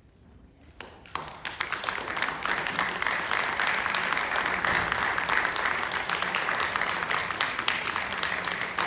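An audience applauding. After about a second of near quiet the first claps come in, building quickly into steady applause.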